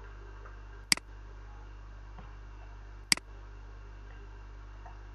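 Two sharp computer mouse clicks, about two seconds apart, over a steady low electrical hum.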